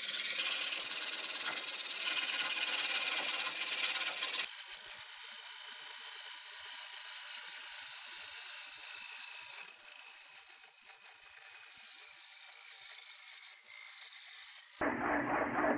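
A ring-cutting blade scraping steadily into a board blank spinning on a wood lathe, a steady hissy cutting noise. Near the end the sound turns abruptly lower and rougher as the blade nears the end of the cut and the ring begins to come free.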